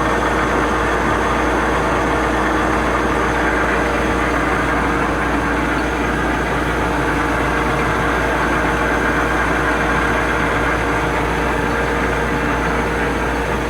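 Höfler H 1000 CNC gear grinder running under power while indexing: a steady machine whir and hum with a few constant tones and no breaks.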